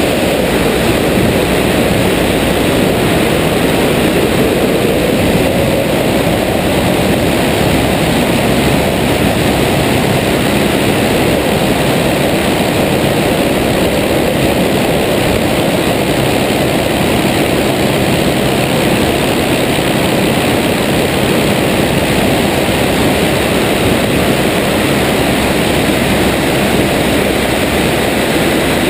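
De Havilland Tiger Moth biplane in flight: its inverted four-cylinder engine and propeller run steadily, heard from out on the wing under a heavy rush of wind.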